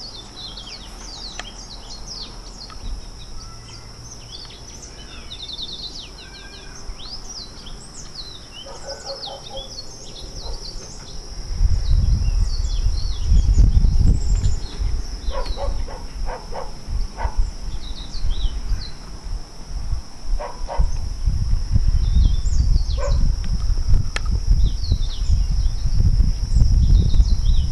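Songbirds chirping and trilling, over a steady high-pitched drone. About halfway in, a loud low rumble of wind buffeting the microphone sets in and comes and goes.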